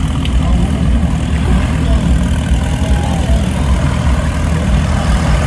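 Engine of a modified off-road pickup running steadily at low revs as the truck crawls along.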